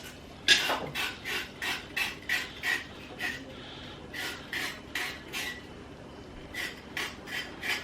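A blade scraping the skin off a raw carrot in quick, rhythmic rasping strokes, about three a second, with two short pauses.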